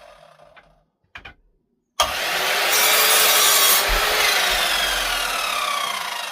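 Electric power saw cutting wood: a loud cut starts suddenly about two seconds in, then the motor and blade wind down with slowly falling pitch. Before that, the end of an earlier run-down fades out, followed by a short click.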